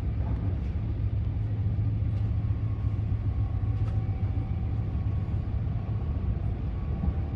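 Inside an ETR 104 'Pop' electric multiple unit running at speed: a steady low rumble with a faint, high, steady whine.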